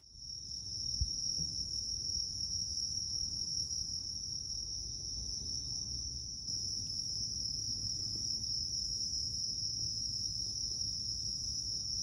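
Crickets trilling at night in a continuous, steady, high-pitched chorus.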